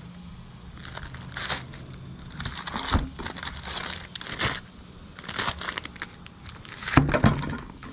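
Clear plastic packaging crinkling as sealed grill accessories are handled, in irregular rustles, loudest about seven seconds in.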